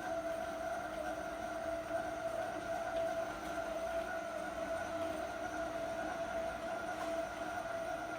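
Automatic tape-cutting machine's electric motor running with a steady, even whine.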